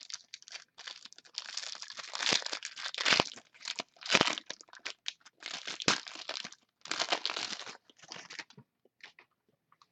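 A trading-card pack wrapper being torn open and crinkled by hand, in irregular rustling bursts with a few sharp rips, fading to light handling of the cards near the end.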